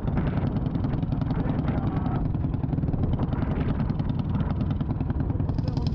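Several dual-sport motorcycle engines idling together, a steady low, rapid pulsing. A higher hiss comes in near the end.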